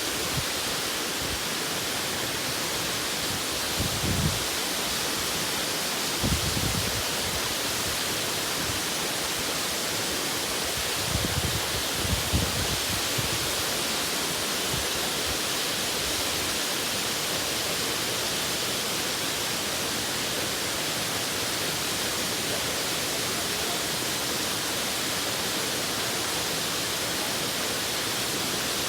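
Waterfall's falling water making a steady, even rush, with a few brief low rumbles in the first half.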